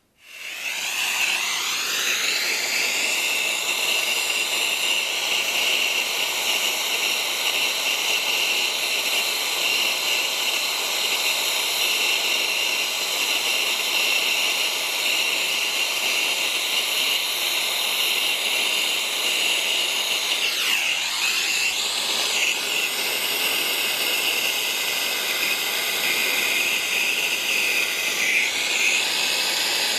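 Brazing torch burning with a steady, loud hiss while copper refrigerant fittings on an evaporator coil are brazed, wavering briefly about two-thirds of the way through and again near the end.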